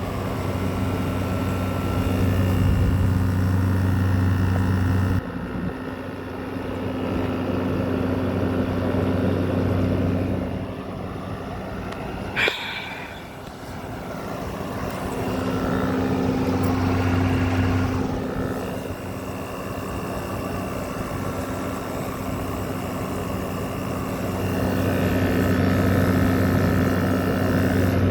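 GE 6,000 BTU wall air conditioner running: its rotary compressor hums steadily under the rush of the fan, the hum swelling and fading several times, with a single sharp click about halfway through. The compressor's accumulator and suction line are freezing up, which the owner puts down to an overcharge of refrigerant.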